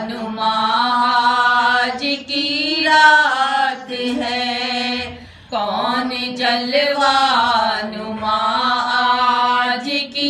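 A woman singing a naat unaccompanied, drawing out long, ornamented notes, with a short breath about five seconds in.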